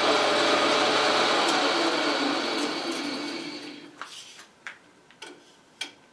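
Logan metal lathe running with its motor hum and spindle noise, then switched off and winding down to quiet over about four seconds. A few sharp light clicks and knocks follow.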